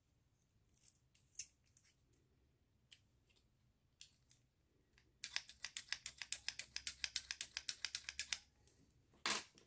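Rapid run of small metallic clicks, about ten a second for some three seconds from about five seconds in, as a finger bounces the picked Miwa DS lock cylinder's plug in and out. A few single clicks of handling come before it, and a louder knock near the end.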